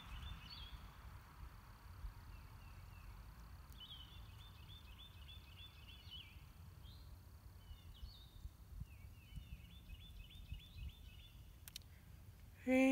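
A songbird singing several runs of quick, repeated high notes a few seconds apart, over a low wind rumble on the microphone. A person's voice comes in briefly right at the end.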